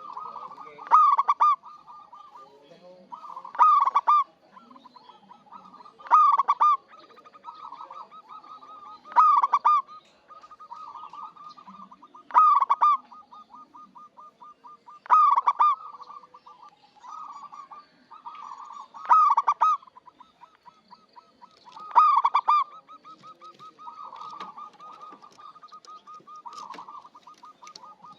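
Zebra dove (local perkutut) cooing: a loud call repeats about every three seconds over a fast run of softer notes.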